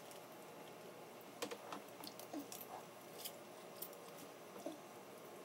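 Faint, scattered clicks and crackles of snow crab shells being cracked and picked apart by hand, with soft chewing.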